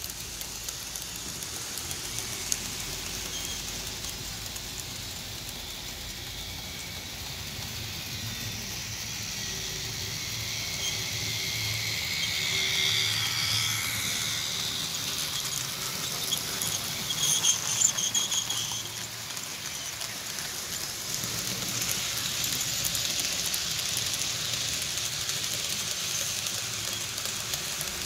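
Model freight trains running on the layout track: a steady rattling rush of metal wheels on the rails, with high-pitched squeals a few times around the middle.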